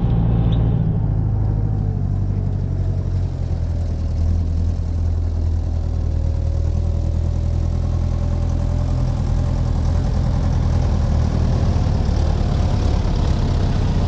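Air-cooled Deutz diesel tractor engine running steadily with a low, even hum, growing a little louder toward the end as the tractor draws near.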